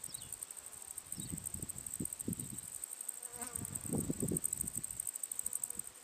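A steady high-pitched, rapidly pulsing buzz of insects, with a couple of short falling chirps near the start. Irregular low rumbles come and go underneath and are loudest about four seconds in.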